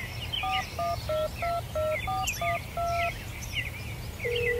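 Touch-tone phone keypad dialing: eight short two-tone beeps, the last one longer, then a phone ringing tone starts about four seconds in. Birds chirp throughout.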